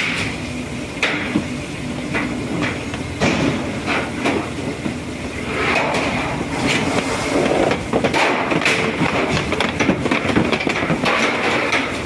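Shipboard plate freezer being clamped shut by its press on the factory deck: metal knocks and clanks from the frosted freezer plates over a steady machinery hum.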